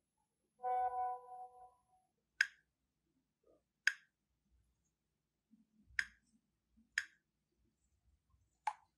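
A short steady pitched tone with a few overtones, lasting about a second, then five single sharp clicks spaced one to two seconds apart.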